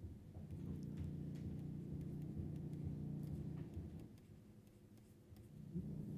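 Faint ticks and taps of a stylus writing on a tablet screen, over a low steady hum that drops away for a couple of seconds in the second half.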